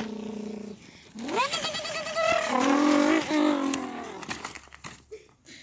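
A boy's voice imitating a car engine: a held hum, then a rising rev and a long wobbling drone, mouth sound effects for the stroller 'car'.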